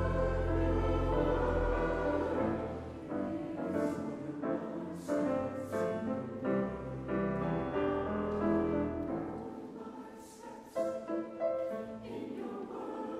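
Slow choral music: voices singing held notes over instrumental accompaniment, with the sung consonants audible several times.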